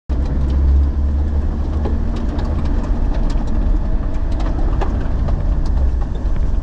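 Motor vehicle driving: a loud, steady low rumble with scattered small rattles and clicks.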